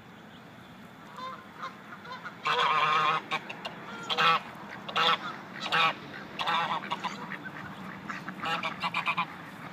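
Chinese geese honking. A long, loud honk comes about two and a half seconds in, then several shorter honks, and a quick run of calls near the end.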